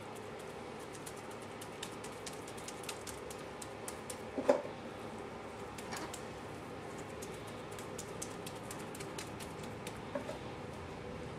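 Granular bonsai soil crackling and rustling as hands scoop it from a plastic tub and press it in around the trees' root balls in a bonsai tray, with one louder knock a little before halfway and a few softer ones later.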